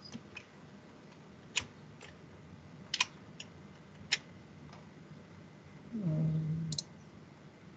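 Faint, scattered computer clicks, a few seconds apart, as a screen is being set up for sharing, then a brief low hum, under a second long, about six seconds in.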